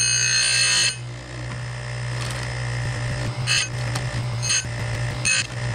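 Oregon 410-120 bench chain grinder running with a steady hum. Its abrasive wheel grinds a chainsaw chain tooth for about the first second, then stops. About three short metallic clicks follow, a second or so apart, as the chain vise is worked and the chain is moved along.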